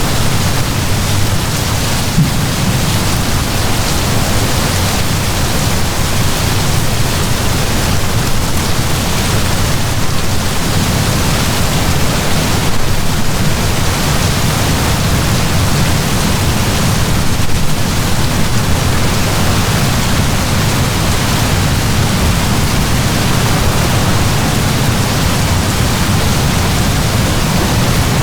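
Heavy rain pouring down in a steady, dense hiss with a deep low rumble beneath it.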